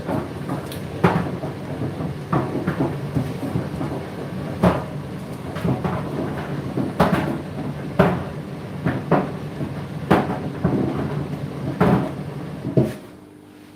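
Laundry tumbling in a machine drum: irregular thuds and knocks as the load falls, over a steady motor hum. About a second before the end the tumbling stops, and only a steady hum with a few even tones is left, as the drum pauses.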